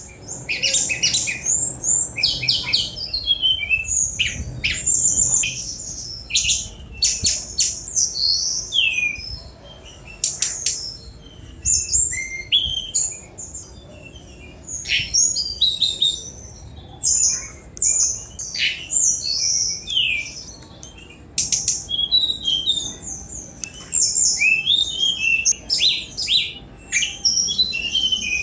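Tledekan gunung (brown-chested jungle flycatcher) singing a fast, high song of rapid chirps, trills and quick up-and-down notes, in phrases a second or two long with brief pauses between them.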